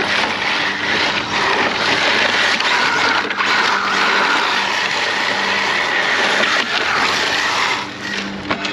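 HPI WR8 Flux RC rally car driven hard, its brushless electric motor whining and rising and falling in pitch with the throttle, over a steady rush of tyre noise.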